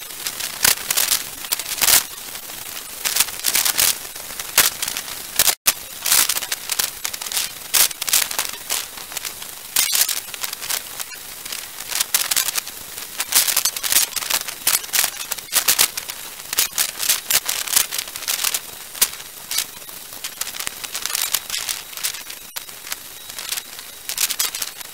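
Hurricane rain and wind noise on an outdoor security camera's microphone, heard as dense, irregular crackling and ticking. There is a brief dropout about five and a half seconds in.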